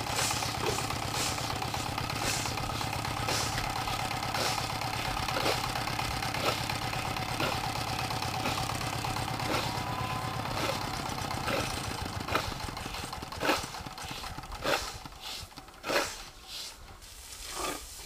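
Grain being swept and raked across a hard threshing floor, about one stroke a second, over an engine idling steadily. The engine fades out about two-thirds of the way through, and the last few broom strokes are the loudest.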